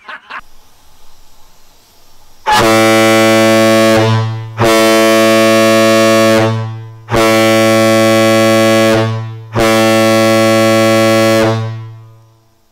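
Cruise ship air horn sounding four deep blasts of about two seconds each, all on one steady low note, starting about two and a half seconds in. Each blast dies away in a short fade, the last fading out near the end.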